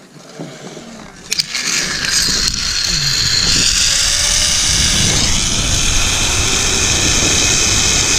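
Zip line trolley running along the steel cable, with wind rushing over the microphone. It builds over the first few seconds into a loud, steady rush with a faint high whine, after a couple of sharp clicks about a second in.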